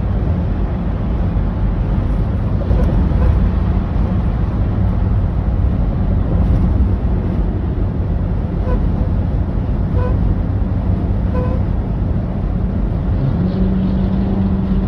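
An unidentified squeaking, honking noise: short high squeaky toots, a few spaced about a second and a half apart, over a loud steady low rumble, then a longer low steady honk beginning near the end.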